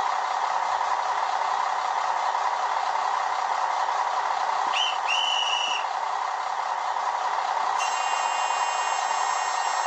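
ZIMO sound decoder in a TT-scale model of a class 842 diesel railcar playing its engine-running sound through the model's small speaker. About halfway, a short high horn toot followed at once by a longer one; near the end, a thinner high tone held for a couple of seconds.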